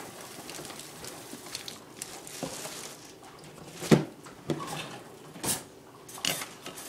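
A metal spoon and fork clinking and knocking against each other and the rim of a cup as they are balanced on a toothpick: five short knocks, the loudest about four seconds in. A faint hiss runs through the first three seconds.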